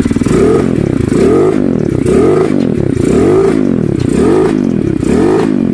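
Rusi Sigma 250 motorcycle engine revved in quick repeated blips, about six, roughly one a second, the pitch rising and falling with each. It exhales through an SC Project-style slip-on muffler fitted with a dB killer and resonator, which the owner credits with the bass sound.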